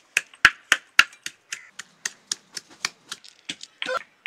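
A blade slicing through vegetables (tomatoes and green chillies), a quick, even run of short crisp cuts about four a second.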